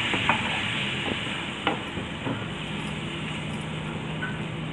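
Spatula stirring chickpea curry in a kadai, the curry sizzling steadily after water has been added over a high flame, with a few knocks of the spatula against the pan in the first half. A steady low hum comes in about halfway through.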